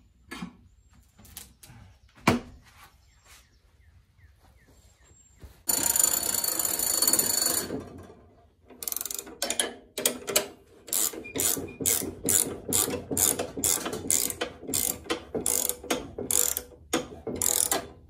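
Wood-Mizer LX25 sawmill head's hand crank turned to set the blade height, giving a rhythmic ratcheting clatter of about two strokes a second in the second half. Before that come scattered clicks, a sharp knock about two seconds in, and a loud rasping noise lasting about two seconds around six seconds in.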